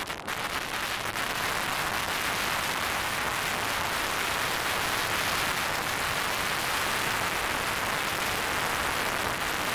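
Steady rush of wind buffeting the microphone as the camera is held out of a moving car's window.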